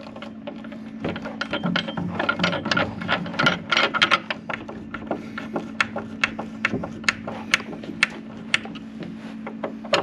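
Screwdriver driving a wood screw through a latch's metal mounting plate into a wooden board, with many small irregular clicks and creaks as it turns.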